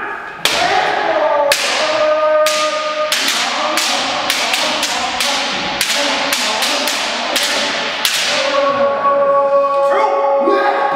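Bamboo shinai striking kendo armour and clashing, with stamping footwork on a wooden floor: many sharp cracks in quick, irregular succession, echoing in the gym hall. Several drawn-out kiai shouts ring over them.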